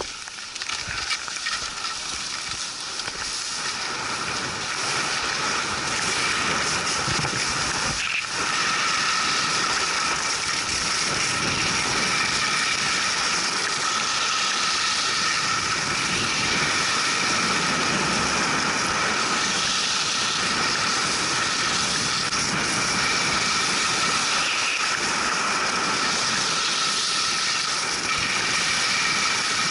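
Wind rushing over the camera's microphone and skis hissing on snow during a fast downhill run. It builds over the first few seconds as the skier gathers speed from a standstill, then holds steady.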